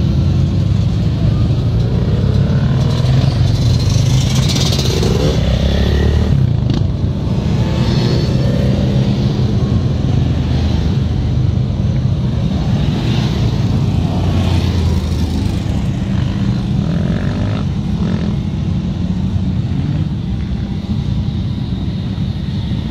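Engines of quad bikes and side-by-side UTVs driving past one by one, revving up and easing off as they pull away, over a constant heavy low rumble.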